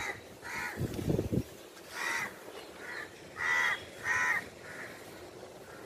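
Crows cawing: a series of about seven short caws, half a second to a second apart.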